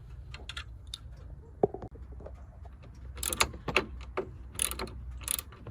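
Scattered clicks and light metallic rattles from handling the car battery's hold-down bracket and fittings, several in quick succession over the second half, over a steady low hum.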